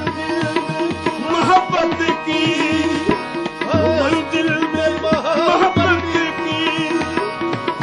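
Qawwali music: tabla playing a steady rhythm under harmonium and a wavering, wordless sung melodic line.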